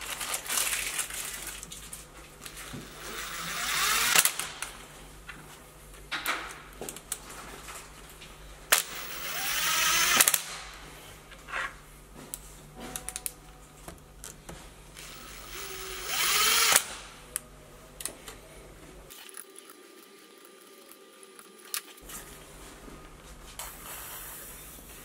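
Cordless driver spinning screws into the cover plate on the back of a Subaru EJ22 boxer engine block. It runs in several short bursts, about four main ones, each building up and stopping as the screw seats.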